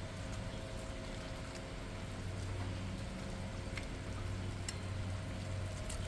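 Pot of fish curry simmering, with a steady low hum under it and scattered soft pops and clicks.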